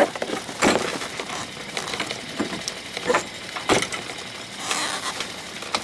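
Irregular light clicks and knocks, spaced about half a second to a second apart, with a short rustle near the end.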